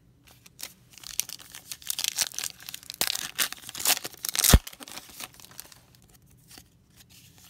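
A foil trading-card pack being torn open, its wrapper crinkling and crackling, loudest about four and a half seconds in, then fainter rustling as the cards are drawn out.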